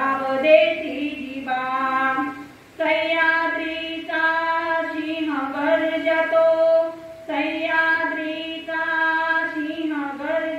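A woman singing a Marathi patriotic song solo into a microphone, holding long notes with a brief break for breath about three seconds in.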